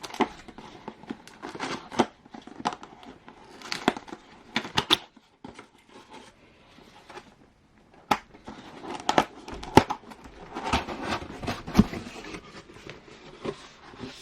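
A cardboard kit box being opened and its plastic-wrapped parts handled: irregular rustling and crinkling of packaging with scattered knocks and taps, quieter for a few seconds in the middle.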